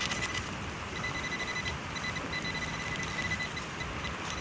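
Metal-detecting pinpointer sounding a high, steady beep that breaks into short pulses from about a second in, over a steady hiss of rain. A few scraping clicks come right at the start.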